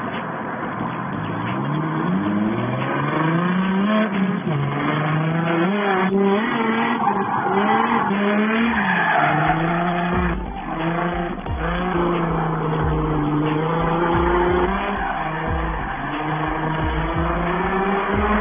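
Infiniti G35's 3.5-litre V6 engine revving up and dropping back repeatedly while the car is drifted, with tyres squealing against the pavement. Low irregular thuds join in from about halfway through.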